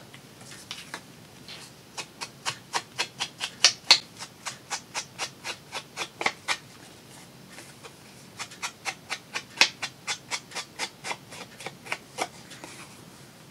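Ink being dabbed onto the edges of paper pieces, in quick rhythmic strokes of about four a second. It comes in two runs with a short pause around the middle.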